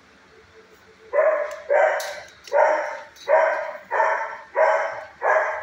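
A dog barking in a steady, repeated string, about three barks every two seconds, starting about a second in.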